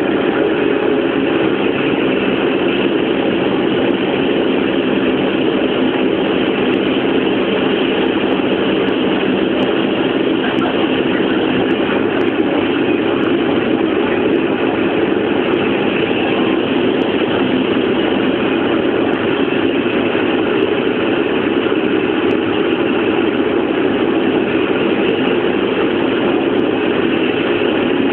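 Hovercraft under way, its engines and fans making a steady, loud drone heard from inside the passenger cabin.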